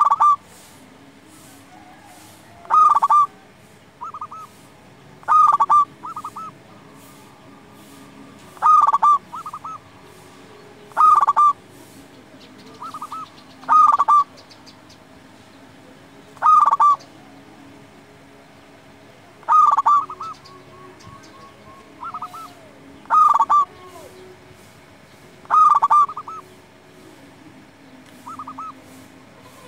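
Zebra dove (perkutut) singing its cooing song: short bursts of quick staccato coos, repeated about every two and a half to three seconds, with softer coos in between.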